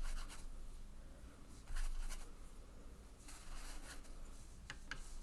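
Watercolour brush rubbing over cold-pressed cotton paper in a few soft strokes, with a couple of light clicks near the end.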